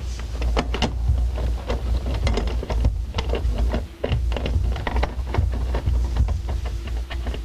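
Irregular clicks and knocks of a plastic hot tub control panel and its screws being handled and fitted, over a low rumble.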